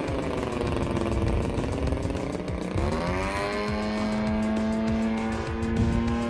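DLE 35RA two-stroke gas engine of a 30cc RC airplane running in flight. Its pitch sinks for the first couple of seconds, climbs sharply about three seconds in as the throttle opens, then holds steady.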